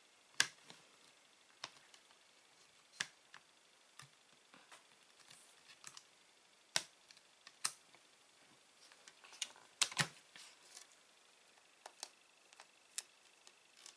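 Scattered sharp clicks and taps from handling a stamp press: clear acrylic stamps and the press's hinged plastic lid being set down and moved, with a few louder knocks about half a second in and around seven and ten seconds in.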